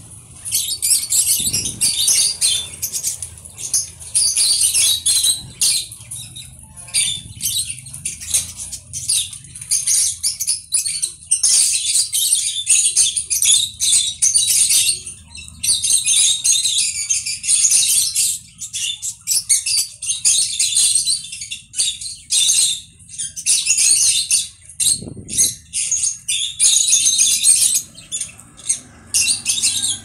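Caged conure chattering and screeching in harsh, high-pitched bouts of a second or two, broken by short pauses.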